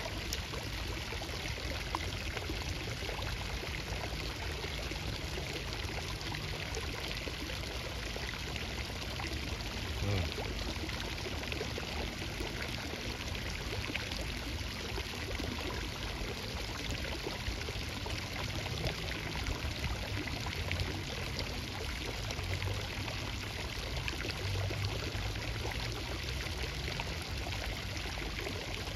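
Steady rush of running water, unbroken throughout.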